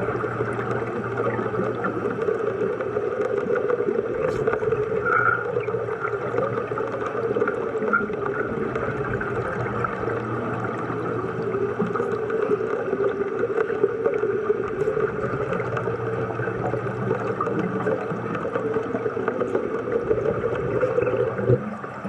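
Underwater welding arc crackling and buzzing steadily amid bubbling, cutting off abruptly near the end as the arc is broken.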